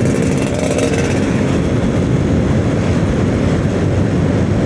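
Motorcycle riding along a road: steady engine and road noise under a heavy rumble of strong wind on the microphone.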